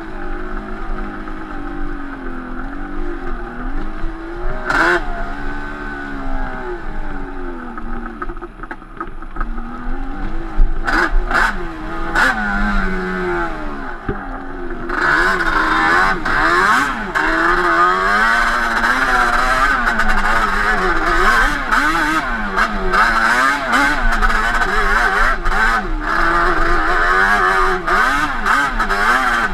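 Yamaha Banshee 350 twin-cylinder two-stroke ATV engine, with Toomey T5 expansion-chamber pipes, riding a trail with the revs rising and falling. There are a few sharp knocks along the way. From about halfway it runs louder and harder under steady throttle.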